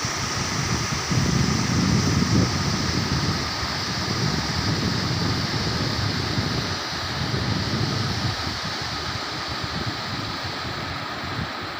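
Steady rushing of river water, with wind buffeting the microphone in uneven low gusts.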